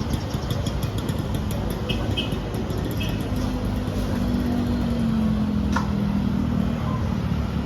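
Street traffic rumbling steadily. From about three seconds in, a passing vehicle's engine drone grows louder, and a single sharp click sounds near the end.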